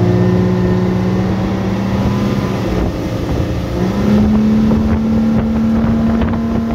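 Yamaha 300 hp outboard motor at full throttle, pushing the boat hard out of the hole, over a rush of wake and wind on the microphone. The engine's pitch steps up about four seconds in. With the engine trimmed fully down, the propeller bites the water without ventilating.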